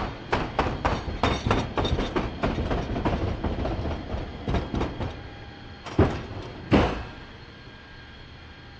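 Cargo pallet rolling over the floor rollers of a C-130J cargo hold: a rapid run of metallic clacks, about four or five a second, that thins out and ends with two louder knocks about six and seven seconds in.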